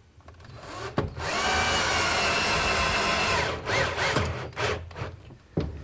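Cordless drill-driver driving a screw home through a wooden tabletop clip: a click about a second in, then a steady motor whine for about two and a half seconds that stops, followed by a few short scattered sounds.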